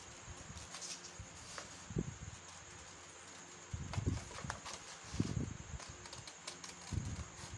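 Scissors cutting through a thin cardboard pattern: irregular snips, with short dull knocks every second or two as the cardboard is handled on the table.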